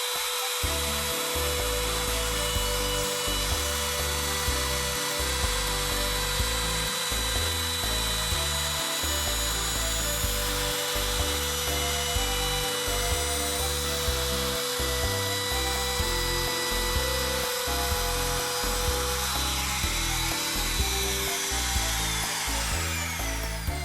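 Electric power tool running steadily with a motor whine, working on wood, then slowing to a stop near the end; background music plays throughout.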